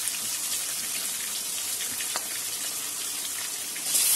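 Marinated chicken pieces frying in hot oil: a steady sizzle with scattered small pops. Near the end it swells suddenly into a louder sizzle as another piece is dropped into the oil.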